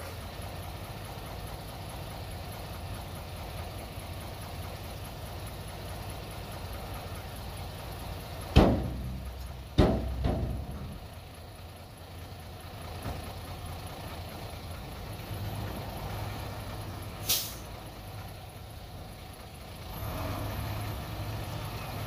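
Diesel dump truck running steadily while its tipper bed comes down, with three heavy metal bangs about nine to ten seconds in as the bed and tailgate settle. A short hiss of air follows later, and near the end the engine runs harder as the truck moves off.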